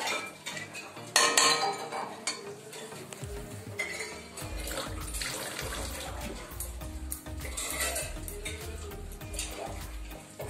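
A metal spatula clinking and scraping in a steel kadai while a bowl of water is poured into mustard-and-yogurt paste. There is a loud clank about a second in.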